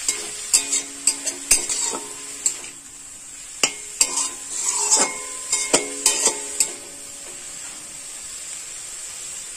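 Metal spatula scraping and knocking against a stainless-steel karai as chopped grass pea (khesari) greens are stirred, the pan ringing briefly after the knocks, over a steady sizzle. The stirring stops about seven seconds in, leaving only the sizzle.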